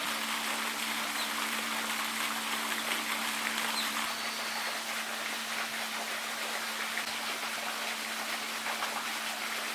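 Steady rushing outdoor noise with two low steady hums under it; the higher hum stops about four seconds in.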